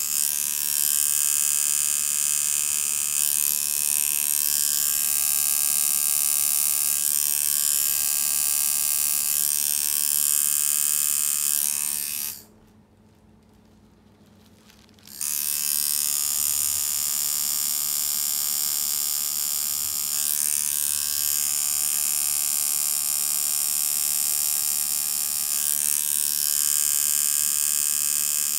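Electromagnetic two-coil tattoo machine buzzing steadily as it works ink into skin, its pitch wavering slightly now and then. It stops for about three seconds a little before halfway through, then starts buzzing again.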